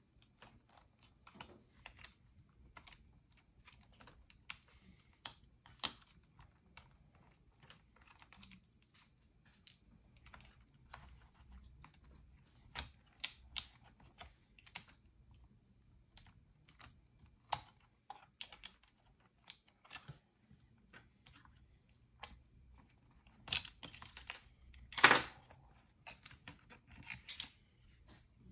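Irregular light clicks and taps, one to three a second, with a louder clatter about 25 seconds in, over a faint steady high whine that stops near the end.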